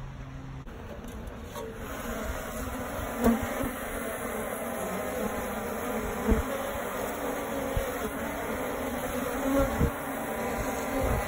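Honey bees buzzing in a dense, steady hum at the entrance of their nest in a tree hollow, the buzzing growing loud about two seconds in. A few brief low thumps break in, the sharpest about three and six seconds in.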